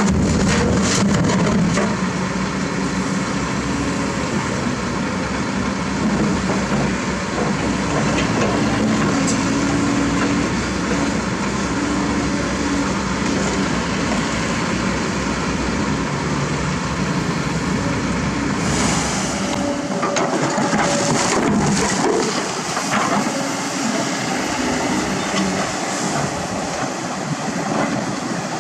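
Diesel engines of a dump truck and a Kobelco excavator running steadily. A little past the middle comes a few seconds of crunching and scraping as broken road material and soil are dug and dropped.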